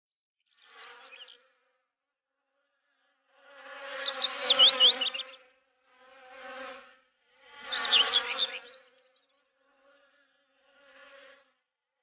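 Honeybees buzzing as they fly past, in several separate swells that rise and fade, the loudest about four to five seconds in and again near eight seconds. High chirping notes ride over the two loudest passes.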